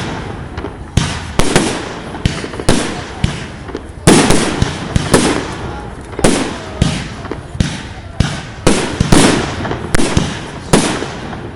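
Fireworks display: aerial shells bursting one after another, about one or two loud bangs a second, each trailing off in a rumbling echo.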